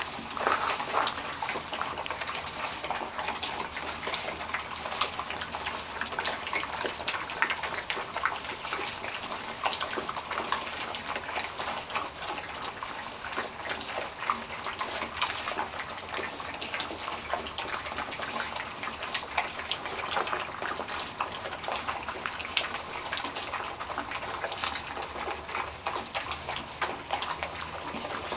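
A litter of puppies eating dry kibble together from a metal multi-bowl feeder: a steady, dense crunching and clicking of many small bites.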